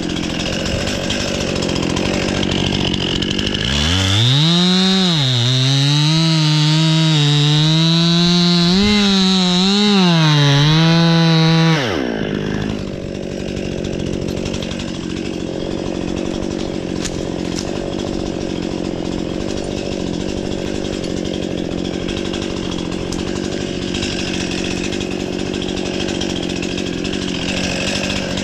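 Chainsaw bucking a tree stem into firewood. About four seconds in it revs up to full throttle, its pitch wavering up and down as it cuts for about eight seconds, then drops away suddenly as the throttle is released. A steady engine drone runs beneath it throughout.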